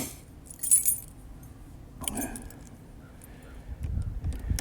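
A set of keys jingling briefly about a second in, followed by faint clicks and handling noises, with a low rumble building near the end.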